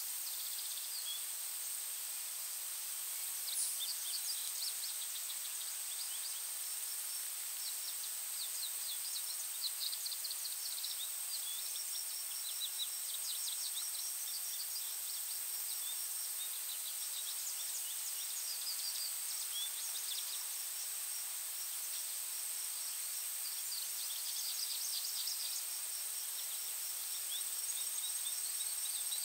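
Woodland songbirds chirping and twittering in quick runs of short high notes, scattered throughout. Underneath are a steady high-pitched whine and a soft hiss.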